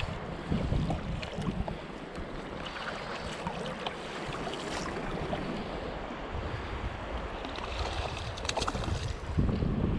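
Wind gusting on the microphone over choppy sea waves splashing and lapping close by. The low wind rumble is heaviest just after the start and again near the end.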